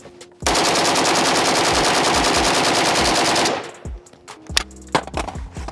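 Pioneer Arms 5.56 AK rifle fired in one continuous full-auto burst of about 30 rounds, roughly ten shots a second for about three seconds, ending abruptly.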